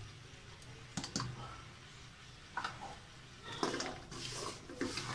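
Scattered light clicks and taps of jaggery chunks and a silicone spatula against a wok as the jaggery is tipped into a little water and pushed about.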